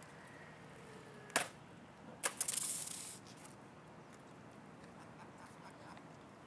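Scratch-built foam RC cargo plane coming down on concrete: a sharp knock about a second and a half in, then a second knock followed by about a second of scraping as it skids along the pavement.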